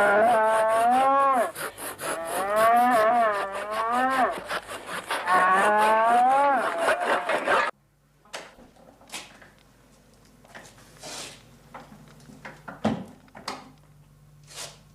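A cow bellowing repeatedly in distress while a saw rasps in fast, even strokes through her ingrown horn. The sound cuts off suddenly about eight seconds in, leaving a quiet room with a few faint knocks.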